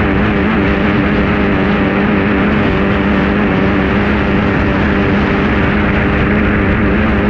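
Formula 2500 racing hydroplane's 2.5-litre outboard engine running flat out at a steady pitch, heard from on board, with heavy wind and water rush over the microphone.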